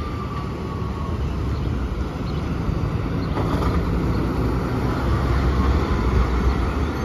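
2009 NABI 40-LFW diesel-electric hybrid transit bus pulling away and passing close by, its low drivetrain rumble growing loudest about five to six seconds in, over steady road traffic. A faint high whine fades out about a second in.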